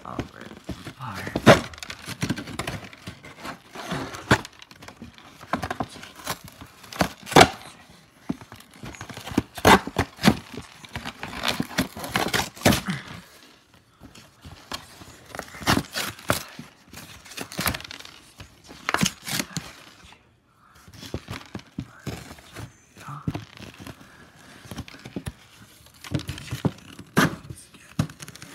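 Cardboard cereal box being ripped apart by hand: irregular tearing and crumpling of the cardboard with sharp cracks and knocks, pausing briefly about fourteen and twenty seconds in.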